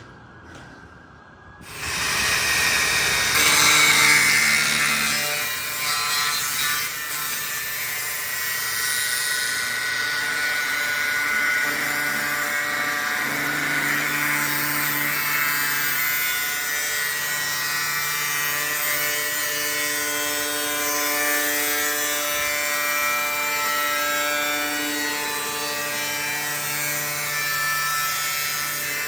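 Power tool cutting into sheet-metal bodywork, starting about two seconds in and running steadily.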